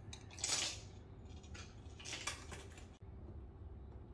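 Spinning fidget toys clattering and scraping on a hard surface as they wind down, in three or so short rattling bursts, the loudest about half a second in.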